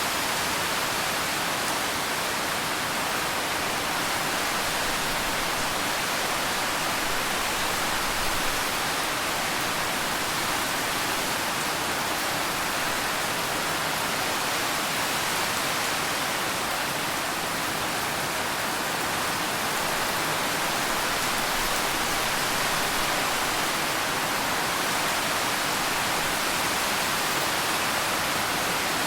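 Steady rain falling: an even, unbroken hiss with no thunder or single drops standing out.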